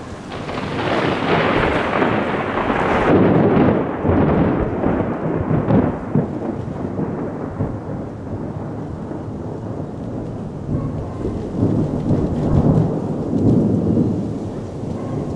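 A long roll of thunder from a thunderstorm. It builds about half a second in and is loudest around three to four seconds in, then rumbles on lower and swells again near the end.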